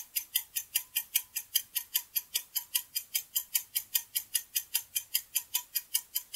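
Countdown timer sound effect: a steady, fast clock-like ticking, about five sharp ticks a second, marking the seconds left to answer.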